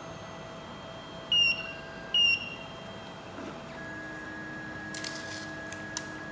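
TOYDIY 4-in-1 3D printer starting a laser-engraving job. Two short high beeps come about a second and two seconds in. About four seconds in, a steady motor whine begins as the axes start moving for auto-homing, with a couple of brief hissing bursts near the end.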